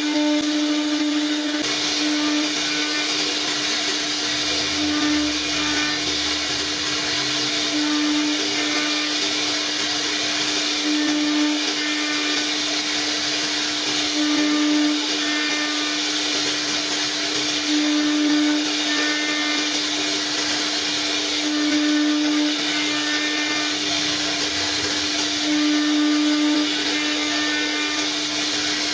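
CNC router spindle running steadily while cutting wood, a constant whine over a loud hiss, swelling briefly every few seconds.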